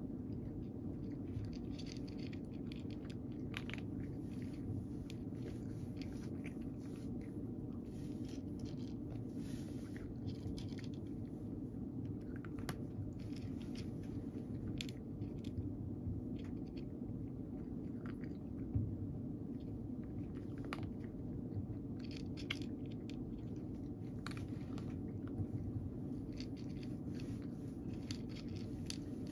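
A domestic cat chewing dry kibble: irregular crisp crunches and clicks, several a second at times, over a steady low hum.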